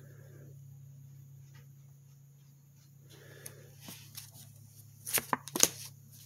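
Tarot cards being handled on a table: a few sharp taps and snaps about five seconds in, over a faint steady low hum.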